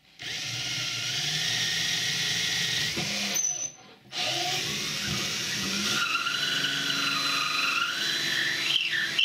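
Cordless drill spinning a saw-toothed drill bit into a plywood panel. The motor whines in two runs with a short pause about three seconds in, and in the second run the pitch wavers up and down.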